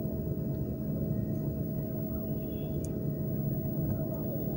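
Steady low mechanical hum with a faint constant tone over it, even throughout.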